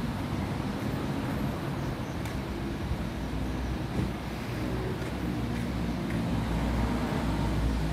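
Steady low rumble of a motor vehicle running.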